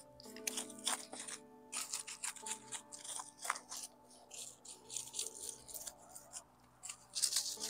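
Hand cultivator scratching and raking through soil and bark mulch in short, irregular strokes, working a soil amendment into the ground around a citrus tree. Steady background music plays faintly underneath.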